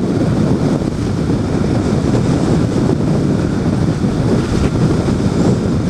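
Heavy wind rushing and buffeting on the microphone of a moving Yamaha FZ-07 motorcycle, blended with the bike running underneath. The noise is loud and steady, and sits low.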